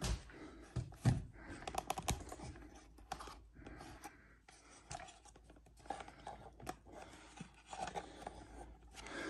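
Quiet scattered clicks, scrapes and rustles of handling, with a few soft knocks in the first two seconds.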